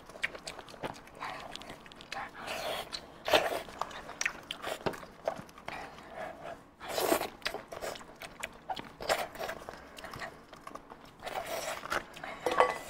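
Close-miked eating of a roasted lamb head: wet, smacking chewing and the sticky tearing of meat and skin pulled off the bone, coming in irregular spurts a second or two apart.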